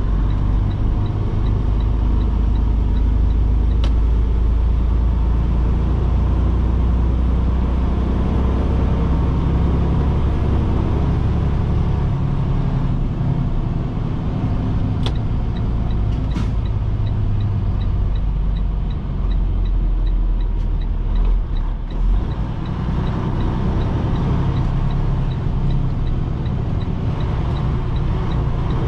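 Flatbed semi truck's engine and road noise heard inside the cab while driving, a steady low rumble that lightens about halfway through. A faint, evenly spaced ticking and a few sharp clicks sit over it.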